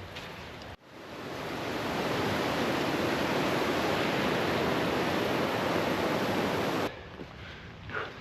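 Rushing stream water: a steady, even rush that swells in just after a sudden cut about a second in, holds, then cuts off abruptly near the end, leaving quieter outdoor ambience with a few light knocks.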